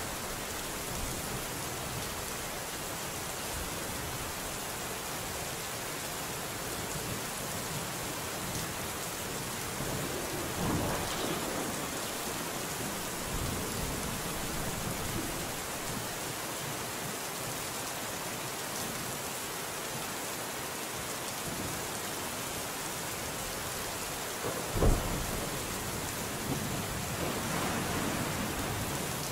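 Steady heavy rain hiss with thunder: a rumble about eleven seconds in, a sharp, loud thunderclap about 25 seconds in, and another rolling rumble near the end.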